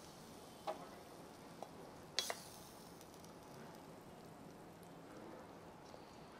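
Faint steady sizzle of sauce on a very hot iron sizzler plate, with a few light clicks, the loudest a quick pair about two seconds in.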